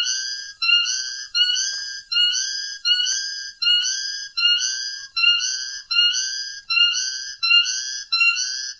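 Long-tailed shrike (cendet) calling one short, slightly rising whistled note over and over at a very even pace, about three notes every two seconds.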